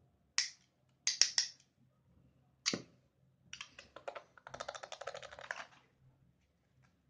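Small hard toys being handled: a few sharp separate clicks, then about a second of fast, dense clicking rattle around the middle.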